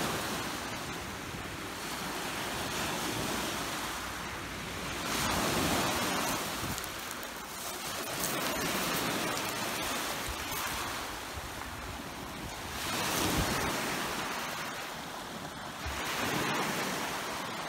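Small lake waves washing up onto a pebble beach, the surf swelling and easing every few seconds.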